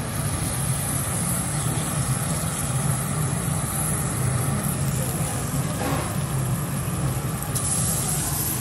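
Steady low hum and rush of teppanyaki counter ventilation, with a faint sizzle from wagyu beef on the hot steel griddle and a light clink about six seconds in.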